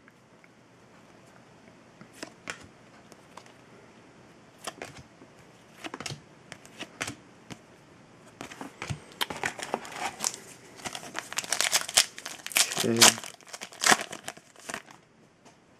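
Foil wrapper of a trading-card pack crinkling as it is handled and torn open, with dense crackling through the second half. Earlier, a few light clicks of cards being flipped through.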